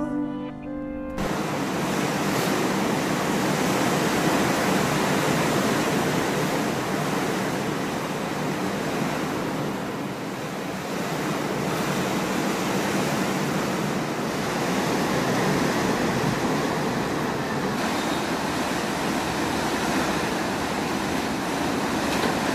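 The end of a song stops about a second in, then a steady, fairly loud rushing hiss with no tune or voice in it.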